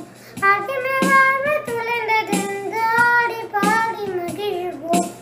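A young girl singing a melodic song, accompanied by an electronic keyboard with a regular percussion beat about every second and a half.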